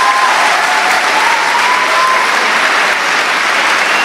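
Concert audience applauding steadily at the end of a piece.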